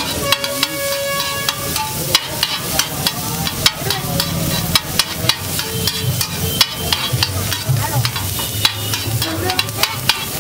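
Slotted metal spatula chopping and scraping an egg mixture on a hot flat griddle, rapid clicks of metal on metal over the sizzle of egg frying in melting butter.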